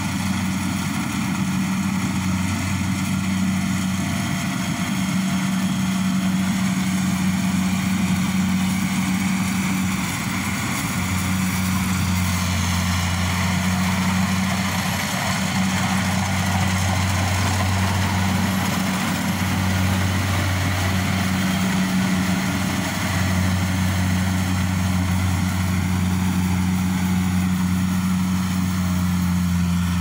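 Kubota rice combine harvester running steadily as it cuts rice: a constant low engine hum with machinery noise over it.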